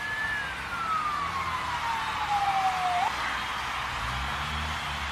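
Comic whistle sound effect: a single clear tone that rises, then slides steadily down for about three seconds before cutting off abruptly, like a slide whistle or a cartoon falling whistle.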